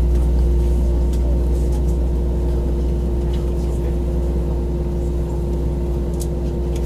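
Steady low drone inside the cabin of an Airbus A321 on the ground, with a steady higher hum over it and a few faint ticks.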